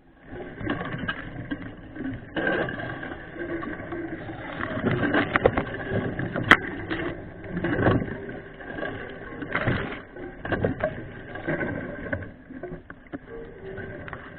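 Mountain bike rolling over a rough trail: a continuous uneven rattle of the bike and mount with many small knocks and tyre noise, and a sharp click about six and a half seconds in.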